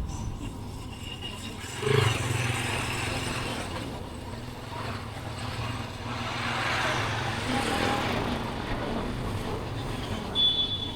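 Street traffic: motor vehicle engines running steadily, with a louder moment about two seconds in and a short high-pitched tone near the end.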